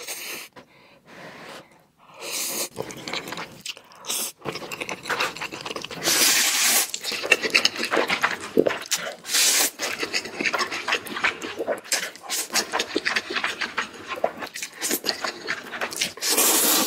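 Close-miked eating of spicy instant noodles: quieter chewing and mouth clicks at first, then from about six seconds in, loud slurps of noodles sucked up in quick succession, with chewing between them.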